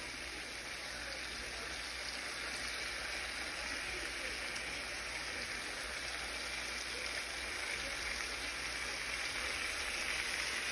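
Butter sauce steadily sizzling and bubbling in a skillet of shrimp, lobster tails, corn and sausage cooking on the stove, an even hiss that grows slightly louder.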